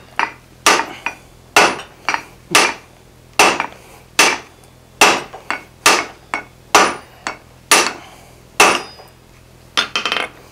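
A sledgehammer and a hand hammer strike in turn on red-hot steel on an anvil as a hammer head is forged, about two to three blows a second. Each blow is sharp with a short ring, and there is a quick run of lighter taps near the end.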